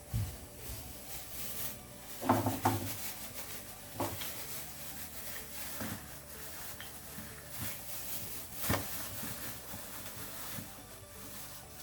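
Scattered light clicks and knocks of small hard objects being handled, the loudest a short cluster about two seconds in, with single knocks about every two seconds after.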